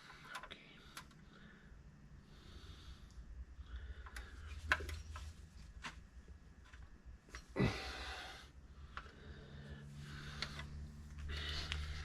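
Scattered light clicks and taps of hand tools and parts being worked on the tractor, with one short rush of noise about seven and a half seconds in, over a low steady hum.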